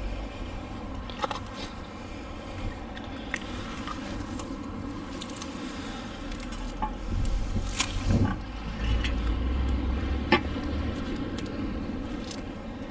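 Scattered sharp clicks and knocks with scraping, from a fishing magnet, its rope and pulled-out scrap metal being handled. A low rumble swells about halfway through.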